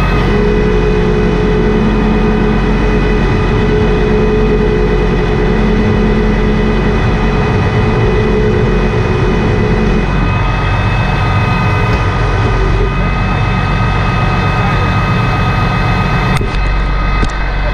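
Heavy tow truck's engine running steadily to drive its side-puller winch, which is hauling a stuck backhoe up out of soft, wet ground. A steady whine over the engine stops about ten seconds in.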